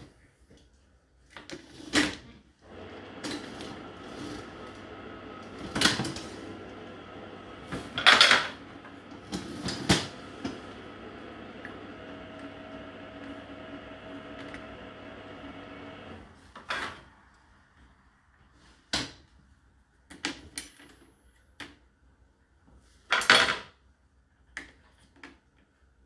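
Dishwasher's top cutlery tray being slid and handled: a string of knocks and rattles of the plastic rack and clinking metal cutlery, the loudest near the middle and near the end. A steady hum sits under the first half and stops about two-thirds of the way in.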